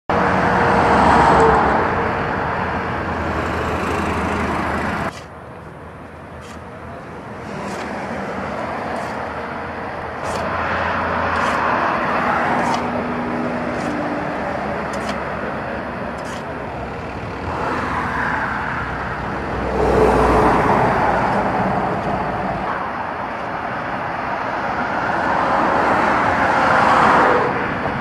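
Road traffic passing on a highway, vehicles going by one after another so that the noise swells and fades every few seconds, with a sudden drop about five seconds in. Faint sharp ticks are heard in the quieter stretch that follows.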